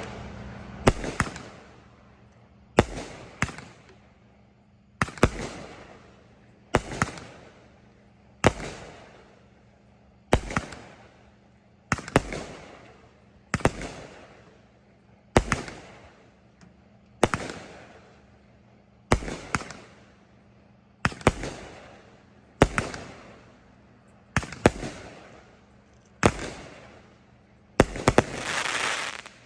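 Consumer aerial fireworks firing a steady series of about sixteen shots, roughly one every two seconds, each a sharp launch pop and a bang followed by a fading crackle. Near the end a longer, denser crackling burst.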